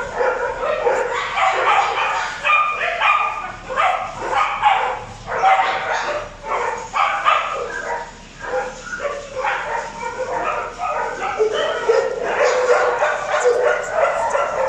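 Several dogs barking and yipping at once, their calls overlapping almost without a break, with a short lull about eight seconds in.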